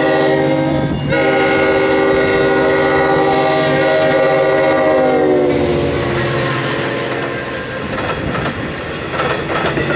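Long Island Rail Road diesel locomotive sounding its multi-note air horn as it approaches, with a brief break about a second in. The chord drops in pitch as the locomotive passes, then gives way to the rumble and clickety-clack of bilevel coaches rolling by.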